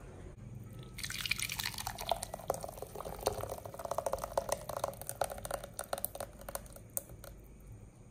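Thick blended avocado-and-milk purée poured from a blender jug into a glass bowl, plopping and splattering as it lands. It starts about a second in and tails off near the end.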